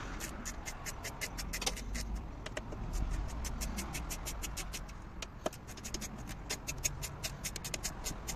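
Plastic clicks and light rattling from hands pressing down and fastening the clips of a Peugeot 208 1.6 HDi's plastic air filter housing cover, after a new air filter has been fitted; a few sharper clicks stand out over a steady low rumble.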